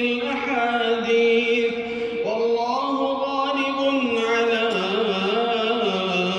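A male reciter chanting the Quran in a melodic tajweed style, holding long drawn-out notes. The pitch lifts a little about two seconds in and steps down lower near five seconds.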